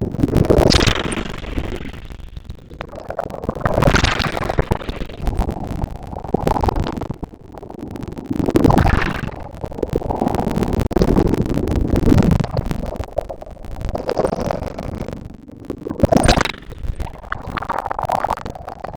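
Ocean waves breaking and washing up a beach, the roar swelling and fading every few seconds.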